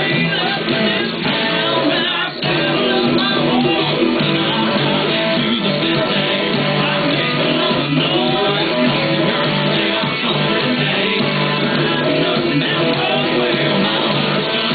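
Electric guitar played through an amplifier along with a recorded country-rock song with a male vocal.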